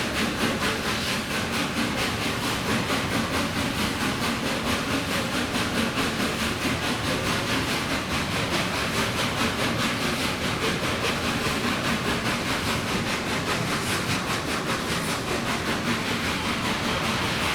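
Train running steadily behind LNER Peppercorn A1 steam locomotive 60163 Tornado: a continuous rumble and hiss with a fast, even beat.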